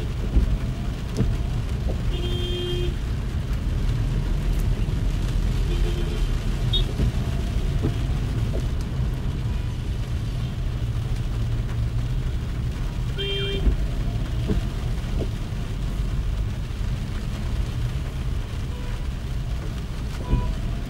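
Steady low rumble of a car driving on a rain-wet road, with a few short horn honks from surrounding traffic about two seconds in, near six seconds, and about thirteen seconds in.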